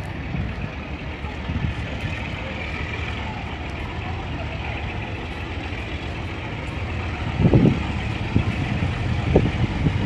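Distant diesel locomotive, an ALCo RSD16, rumbling steadily as it approaches. Loud low bumps come about two thirds of the way in and again near the end.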